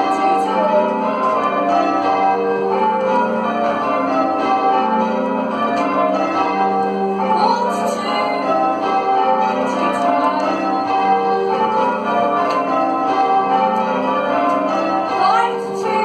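Church tower bells rung in English change ringing, heard from the ringing chamber beneath them: a continuous, even run of overlapping bell strokes, each bell ringing on after it is struck.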